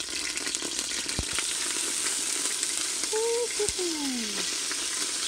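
Caramelized onions sizzling as they drop into the hot stainless inner pot of an Instant Pot, a steady frying hiss with a few light clicks. A brief tone that dips and glides down is heard about three seconds in.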